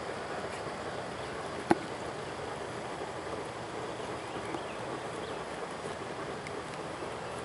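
Steady rushing outdoor noise, like wind on the microphone, with one sharp knock a little under two seconds in.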